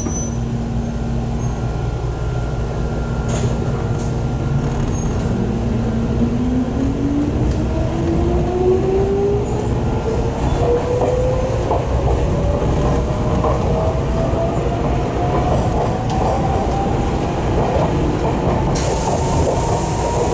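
Jomo Electric Railway 700 series electric train (ex-Keio 3000 series), heard from inside the car, accelerating over steady running rumble. Its motor whine climbs steadily in pitch from about five seconds in, and a hiss joins near the end.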